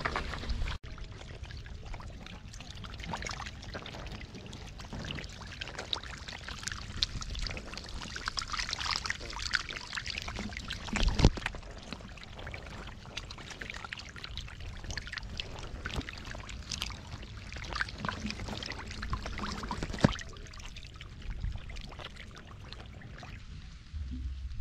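Shallow muddy water splashing and trickling as hands work through mud, with many small irregular wet crackles and two louder splashes, one near the middle and one later.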